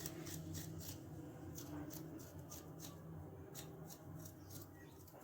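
Fresh ginger root being peeled by scraping off its skin: faint, quick scraping strokes, two or three a second, a little irregular.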